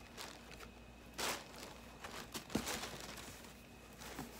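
Quiet handling of a plastic mailer bag holding clothing: a short rustle about a second in, then a few soft knocks and faint rustles.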